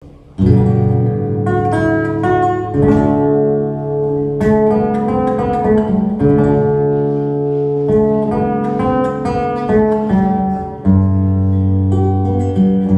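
Live acoustic music led by guitar: plucked and strummed chords and a moving melody, starting about half a second in.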